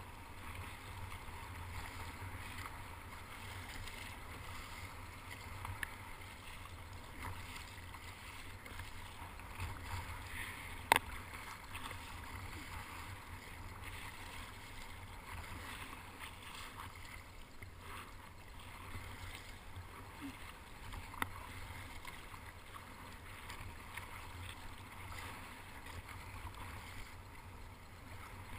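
Kayak paddle strokes splashing and water sloshing along the kayak's plastic hull, an even wash of water sound under a low rumble. A few sharp knocks stand out, the loudest about eleven seconds in and another about twenty-one seconds in.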